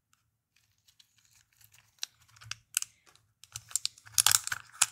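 Hands sorting small electronic components in a clear plastic compartment box: light plastic clicks and taps mixed with crinkling of the components' plastic bags, sparse at first and busier from about three and a half seconds in.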